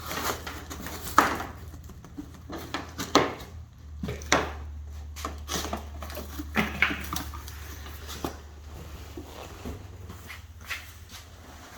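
A large 3D printer being unpacked from its cardboard box: irregular knocks, scrapes and rustles of the box and packing being handled, over a steady low hum.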